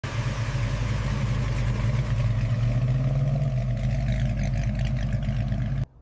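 Classic Ford Mustang's engine idling steadily with a deep, even note, cutting off suddenly near the end.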